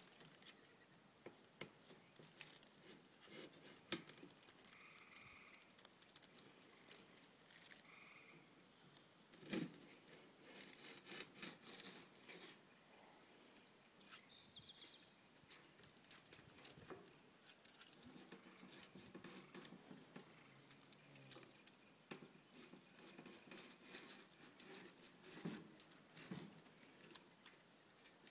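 Near silence: faint outdoor background with a steady high insect drone, broken by scattered small knocks and taps as a hand handles a galvanized metal and wire-mesh box; two knocks, about four and nine seconds in, stand out.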